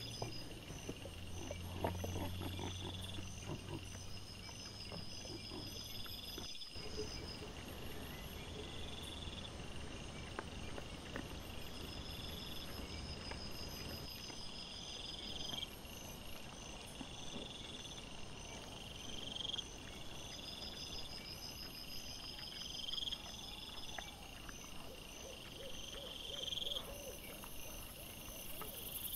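Night insects, crickets or katydids, chirping in a steady repeating pattern, with low grunts and rooting noises from wild boar feeding close by. The audio runs four times faster than real time, so the chirps and grunts come quick and high-pitched.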